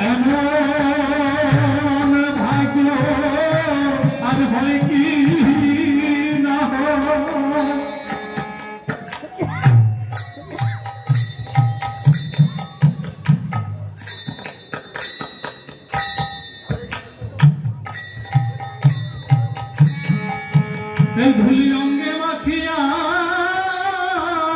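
Bengali kirtan music: a man singing over a held harmonium chord with khol drum beats. After about eight seconds the singing stops for an instrumental stretch of khol drumming with sharp high strokes, and the singing and harmonium come back near the end.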